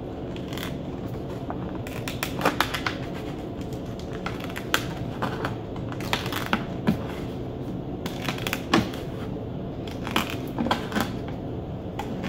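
Scissors snipping their way around a 2-liter plastic soda bottle: a series of irregular, sharp snips.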